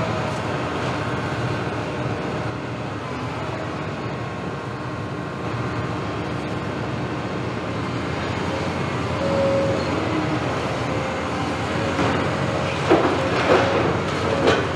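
Caterpillar 329E excavator's diesel engine and hydraulics running steadily as its demolition grapple works the wall, with three sharp knocks near the end.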